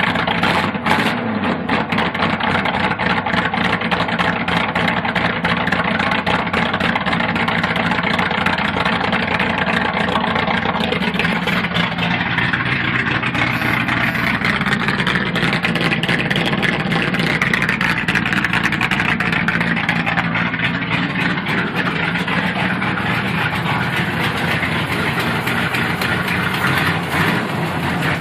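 Cammed 305 small-block Chevy V8, with a Comp Cams 292H camshaft and shorty headers, running at idle after a hard cold start. It picks up about five seconds in.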